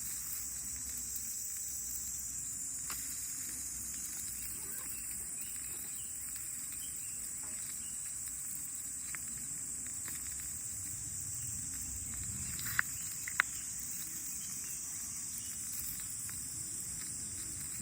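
Steady high-pitched chorus of summer insects, with a few scattered sharp pops; the two loudest come close together about two-thirds of the way in.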